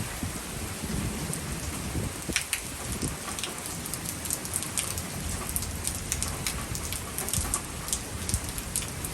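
Steady rain falling, with many sharp ticks of drops striking hard surfaces close by.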